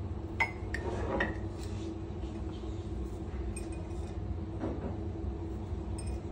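Drinking glasses clinking: a few light clinks with a short ringing chime in the first second and a half, then a softer knock a little after four and a half seconds, over a steady low rumble.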